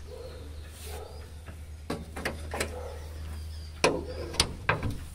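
Several sharp clicks and knocks in the second half, over a steady low hum.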